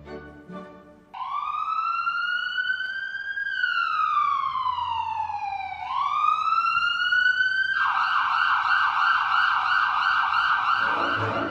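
Dance soundtrack music gives way about a second in to an emergency-vehicle siren sound effect: a slow wail that rises, falls and rises again, then switches about two-thirds of the way through to a fast warbling yelp.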